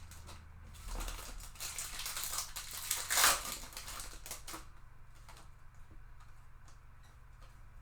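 Rustling of a trading-card pack and cards being handled, loudest a little after three seconds in, then a few light ticks.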